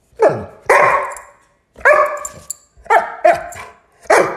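A dog barking: about six short, loud barks, some in quick pairs.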